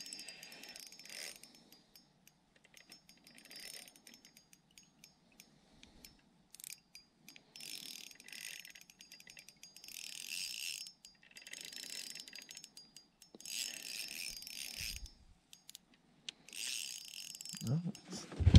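Spinning fishing reel being cranked in about eight short bursts, each a fine rapid whirring tick, as a hooked bass is reeled in. A low thump about three-quarters of the way through.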